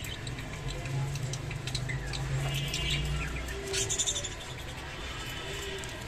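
Budgerigars chirping in short scattered calls, with a louder, brighter burst of chirps about four seconds in. A low steady hum runs under the first half.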